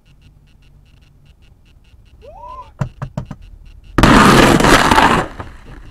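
Several sharp knocks, then a loud crash lasting just over a second as the car's windshield is struck by a spray of flying debris and cracks.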